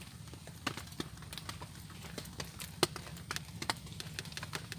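Metal spoon clinking against the sides of an enamel mug as a drink is stirred: irregular ticks, a few a second, one louder clink near the middle.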